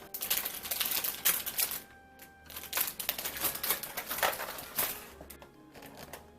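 Plastic food packaging rustling and crinkling as groceries are handled, with sharp little clicks, in two spells of about two seconds each with a short pause between. Soft background music underneath.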